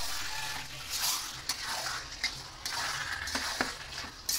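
Spatula stirring and scraping mutton pieces around a kadai, with a few sharp knocks against the pan over a steady sizzle of the meat frying in its released oil.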